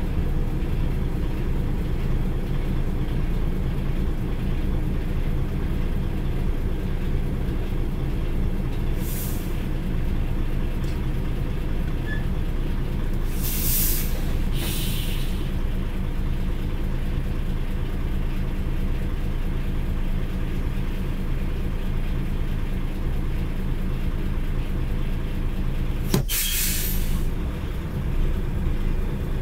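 Lorry diesel engine running steadily at low revs, heard from inside the cab while crawling in slow traffic. Short hisses of air brakes come about nine seconds in, twice around fourteen seconds and once near the end, the last just after a click.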